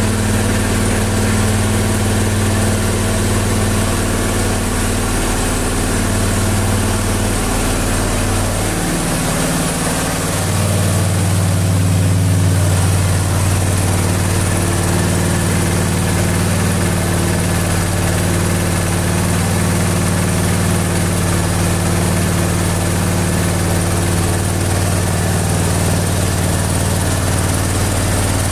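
Briggs & Stratton Intek V-twin engine of a Husqvarna riding mower running steadily shortly after a cold start, having stood for four months. Its engine note changes about nine to ten seconds in, then settles into a steady run again.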